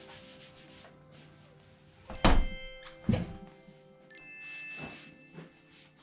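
Two heavy thumps, about two and three seconds in, as the electric unicycle is moved and set upright on the floor, with a couple of softer knocks near the end, over steady background music.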